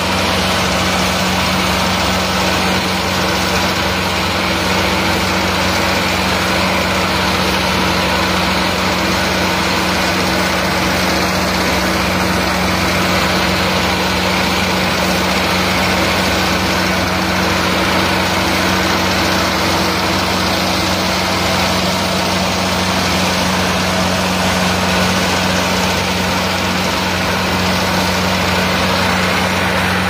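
Kubota Skyroad R.L.451 combine harvester running steadily under load as it cuts and threshes ripe rice, a continuous engine and machinery drone.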